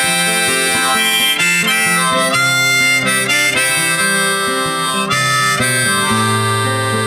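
Background music: an instrumental passage of a song, led by harmonica with guitar underneath.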